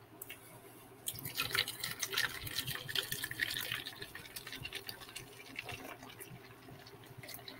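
Canned malt beverage poured into a plastic cup, liquid splashing and filling the cup. It starts about a second in, is loudest over the next two seconds, then trails off as the pour slows.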